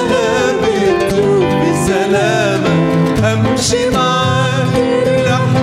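A woman singing an Arabic Christian hymn into a microphone, her voice wavering on held notes, over an instrumental accompaniment with a moving bass line.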